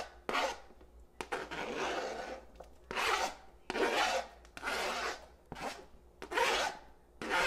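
Knife blade scraping across a plastic cutting board, pushing diced jalapeños off the board: a run of rasping strokes, about one a second.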